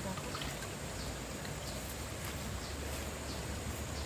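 Steady outdoor background noise with a low rumble, and faint short high chirps repeating about every half second.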